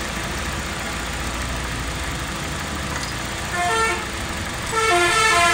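Car engine idling with a steady low rumble while misfiring, its number-one ignition coil not firing. Two short horn-like toots sound, the first about three and a half seconds in and a longer one near the end.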